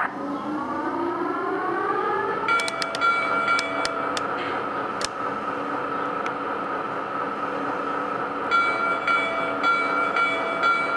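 Lionel S2 electric locomotive model's onboard sound system starting up: a rising electric whine that climbs for about two and a half seconds, then holds as a steady whine with intermittent clicks and ticks.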